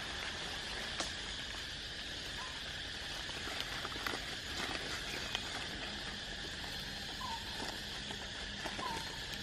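Steady outdoor insect buzz, with a few light clicks and three short, faint chirps spread through it.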